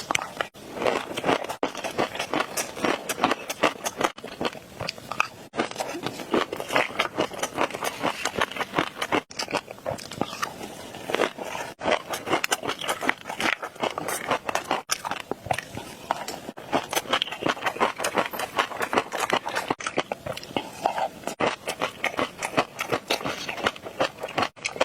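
Close-miked eating: repeated biting and chewing with dense, rapid crackling and crunching, broken by brief silent gaps every second or two.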